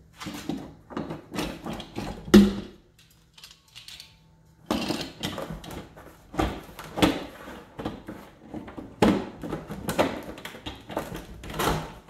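Irregular plastic knocks, clicks and handling noise as a lid is pressed onto a plastic barrel and a clamping ring is fitted around its rim, with one sharp knock about two and a half seconds in and a quieter stretch after it.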